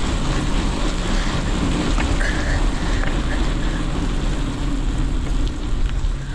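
Wind rushing over the microphone of a camera carried on a moving bicycle: a steady low rumble with hiss.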